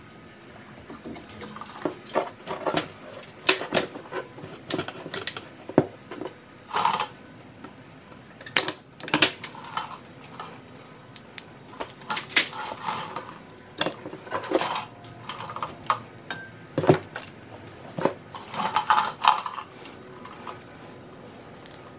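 Worn front brake pads being worked out of a Porsche Macan GTS caliper and handled: irregular metallic clinks and clatter of the steel-backed pads against the caliper, some with a short ring.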